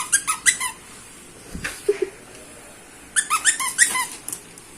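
Dog squeezing a squeaky dog toy in its jaws: a quick run of about five squeaks right at the start, then another run of squeaks about three seconds in.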